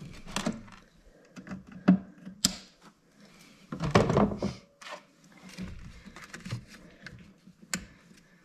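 Hands working cables and a zip tie around a snowmobile engine's power valves: scattered sharp clicks and taps, with a longer burst of rustling about four seconds in.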